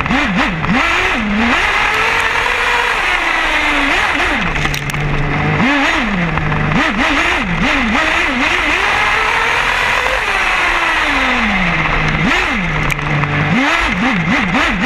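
Losi 8ight nitro RC buggy's small two-stroke glow engine revving hard, heard from a camera mounted on the car. There are quick throttle blips with the pitch jumping up and down, and long runs where the pitch climbs, holds high and falls away. Twice it drops back to a steady idle.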